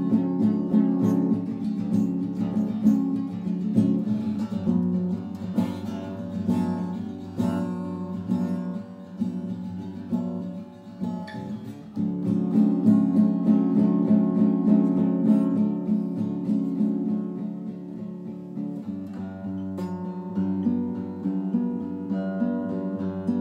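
Acoustic guitar being played, a continuous run of plucked and strummed chords, with a brief lull about ten seconds in before the playing picks up again.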